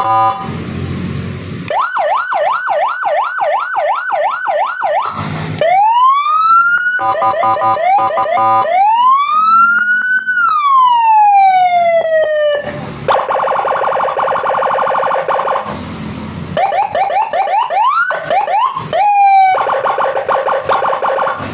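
Custom electronic police-escort (patwal) siren cycling through its tones. It plays a fast yelp of repeated rising-and-falling sweeps, long single wails that rise and then fall, a stepped multi-tone warble, and a few stretches of harsh buzzing tone.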